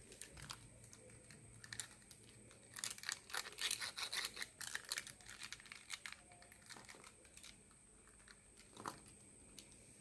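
Scratching and rustling on paper in scattered scratches, with a denser run of scratchy strokes about three to five seconds in and a short one near the end.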